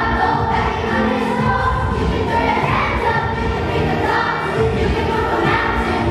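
Children's choir singing, holding long notes that change every second or so.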